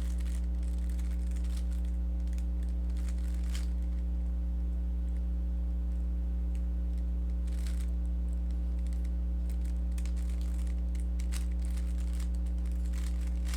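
Steady electrical mains hum, with faint irregular clicks of a Rubik's cube being turned through an algorithm.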